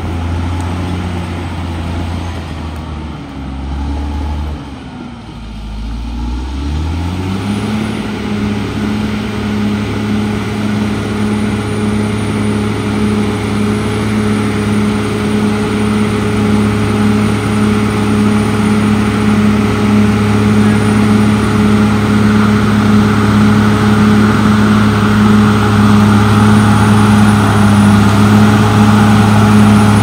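Caterpillar D6R XL bulldozer's diesel engine working: it drops low a few seconds in, then revs back up at about seven seconds and holds a steady pitch, growing louder as the blade pushes a pile of soil along the road.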